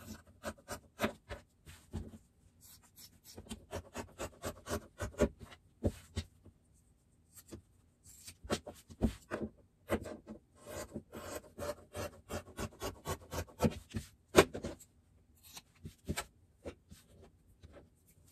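Scissors snipping through the seam allowance of a sewn fabric piece: runs of quick, short cuts with brief pauses between them, as the seams are trimmed back and the corners clipped.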